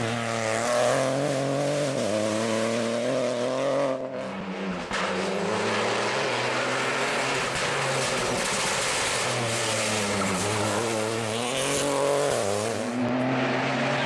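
Peugeot 208 Rally4 rally car's turbocharged three-cylinder engine revving hard at stage speed. Its pitch climbs under acceleration and drops at each gear change or lift off the throttle.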